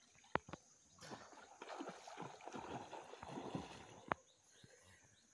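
Faint water splashing from a person swimming: a run of small splashes for about three seconds, with a couple of sharp clicks before it and one after.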